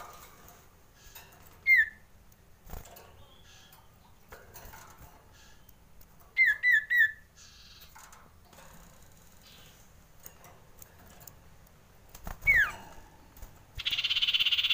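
Common iora (cipoh) calling: short sharp falling whistled notes, a quick group of three about six and a half seconds in and a longer falling whistle near twelve and a half seconds, then a loud, rapid rattling chatter near the end. These are the calls of a frightened iora, with soft knocks and rustles of the bird hopping and fluttering in a wire cage between them.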